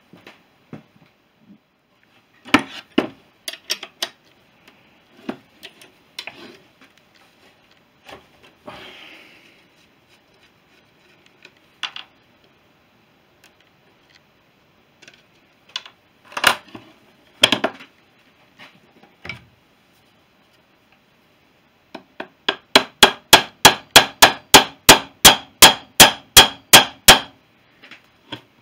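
Metal tool clinks and knocks while a motorcycle brake backplate is dismantled with a spanner. Then, near the end, a run of about twenty quick, evenly spaced hammer blows on metal, about four a second, each ringing briefly.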